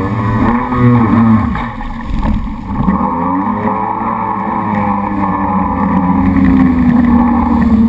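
Jet ski engine running at speed, its pitch rising and falling a few times as the rider throttles through turns, then holding steadier near the end, with water spray and wind rushing over the handlebar-mounted microphone.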